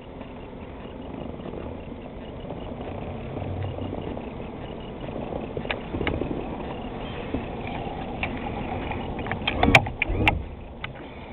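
Boat engine running steadily, with two loud knocks close together near the end.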